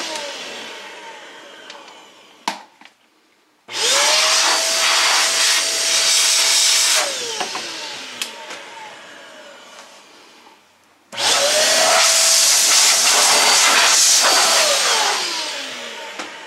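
Sin Shine cordless electric air duster blowing a keyboard clean in two bursts, each a few seconds long: its fan motor whines up to speed with a rush of air, holds steady, then winds down with a falling whine. At the start the previous burst is winding down, and a sharp click comes shortly before the first new burst.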